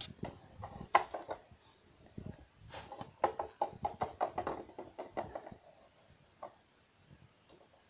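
Small plastic toy animal figures being moved and set down on a tabletop: a run of light knocks and clicks, the loudest about a second in and a quick cluster in the middle.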